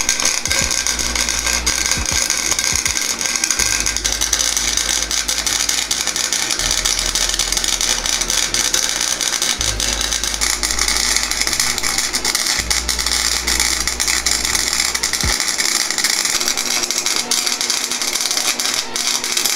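Flux-core wire welder crackling steadily as it welds steel tubing, over background music with a low bass line that changes every few seconds.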